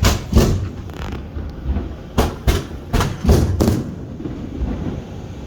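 Fireworks display: about seven sharp bangs, a pair near the start and a rapid run of five between two and four seconds in, each trailing off in a rumbling echo.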